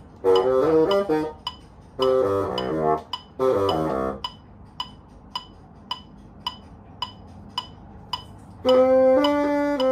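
Bassoon playing three short runs of quick notes, then resting for about four seconds while a steady click ticks nearly three times a second. About nine seconds in, it moves to longer held notes.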